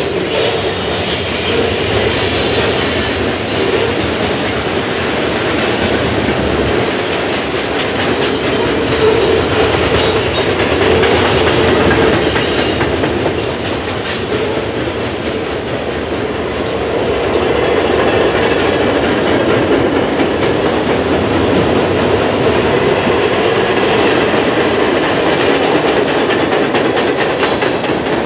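Freight train cars rolling past steadily: steel wheels clattering over the rails, with high-pitched wheel squeal through the first half that fades to a steadier rumble later.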